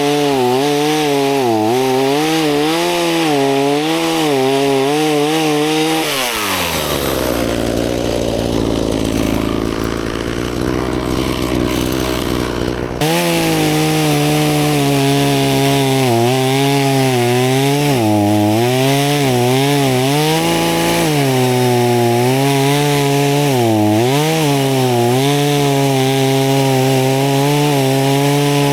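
Two-stroke chainsaw running at high revs, its pitch wavering as it cuts into branches. About six seconds in the throttle is released and it drops to idle; about seven seconds later it snaps straight back to full throttle and carries on cutting.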